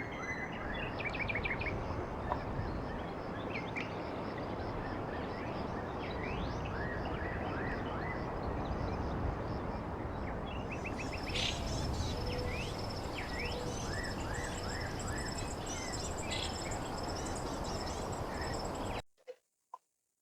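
Small birds chirping repeatedly over a steady background hiss; a thin high steady tone joins about halfway, and everything cuts off abruptly near the end.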